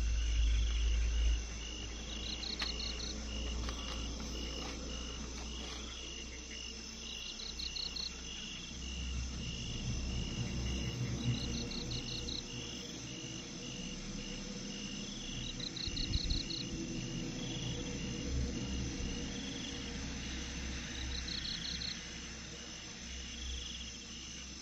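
Night insects, crickets among them, chirping steadily: one pulses evenly about twice a second, and a second gives a short trill every four or five seconds. Low rustling and handling noise runs underneath.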